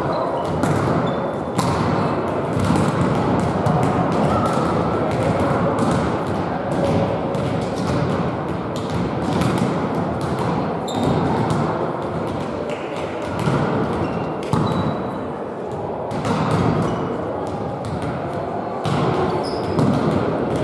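Volleyballs being struck and bouncing on a hall floor, a string of sharp thumps at irregular intervals over a steady background hubbub, echoing in the sports hall.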